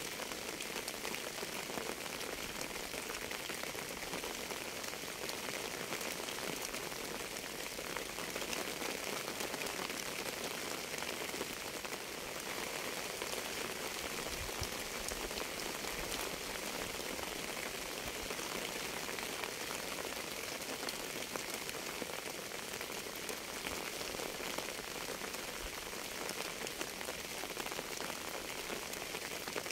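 Steady rain falling: a dense, even patter of raindrops that holds the same level throughout.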